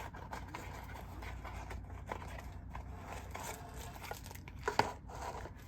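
Faint rustling handling noise as a small folding pocket knife is picked up and handled, with a sharp click about three quarters of the way through, over a low steady hum.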